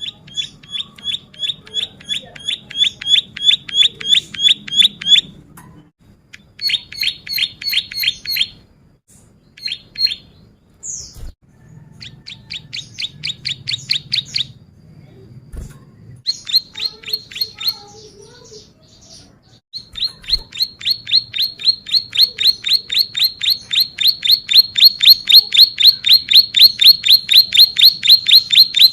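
Ciblek sawah (a prinia) singing: fast trains of sharp, evenly repeated chirps, about four to five a second, in bursts broken by short pauses, then one long unbroken run over the last third.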